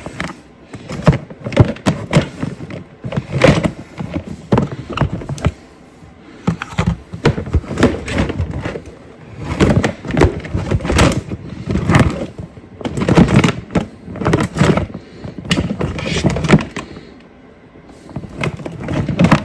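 Irregular knocks, thuds and clatter of objects being rummaged through and moved about, with a brief quieter pause near the end.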